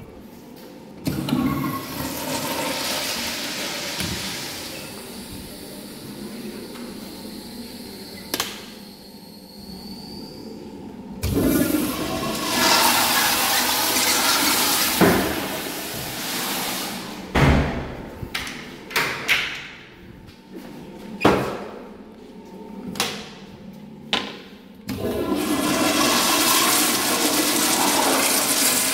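Public-restroom toilets flushing three times, each a loud rush of water swirling down the bowl, the first with a thin high whistle over it. Several sharp knocks fall between the second and third flushes.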